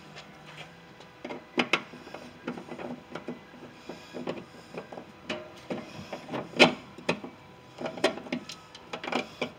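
Scattered clicks and metallic clanks of a screwdriver and latch parts being worked at the inside latch remote assembly of a van's steel rear cargo door, the loudest clank about six and a half seconds in.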